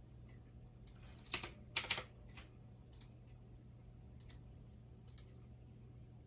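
Computer keyboard and mouse clicking: a few scattered single clicks, with two quick flurries of keystrokes, the loudest sounds, about a second and a half in. Under them runs a faint steady electrical hum.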